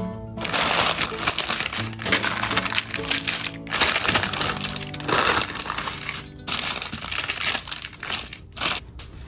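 Baking paper crinkling and rustling loudly as hands peel it back from a set slab of rocky road, pausing briefly twice, over background music.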